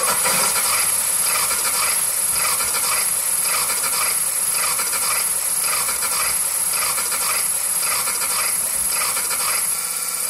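Electronic noise music played over PA speakers: a dense hissing texture that pulses about twice a second.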